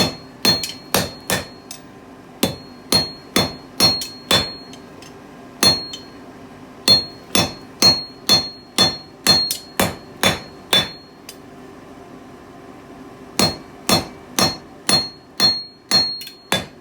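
Blacksmith's hammer striking a hot EN9 steel bar over a half-inch fuller, about two blows a second, each blow with a high metallic ring. It is fullering dings into the bar to draw it out for a fire steel. The blows come in runs, with a pause of about two seconds some two-thirds of the way through.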